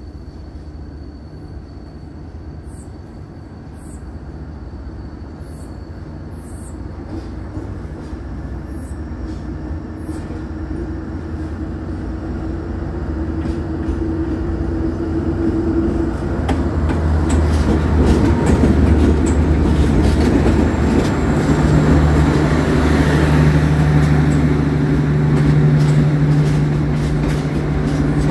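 Diesel train locomotive with its steady low engine hum drawing closer and growing louder over the first two-thirds. In the last third, wheels clicking rapidly over rail joints as the train goes by.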